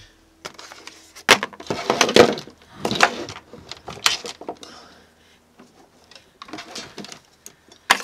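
Handling noise: a series of short rustles and clatters from cables and gear being moved about, with a sharp click near the end.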